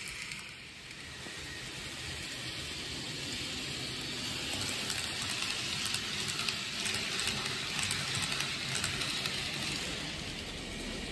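N-gauge model train running on the track: a steady rolling rattle with light clicking at the rail joints. It grows louder about four seconds in and eases again near the end as the train passes.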